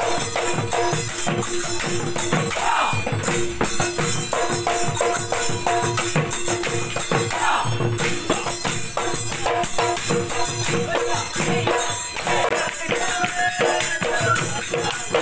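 Bihu husori music: a dhol drum beaten in a fast, steady rhythm with jingling hand cymbals over it.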